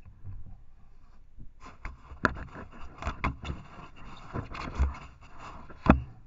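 TOGUARD trail camera being jostled on its pole as an elk cow tugs on its strap: scraping and rubbing against the camera body with a string of knocks. It starts about a second and a half in, and the loudest knock comes near the end.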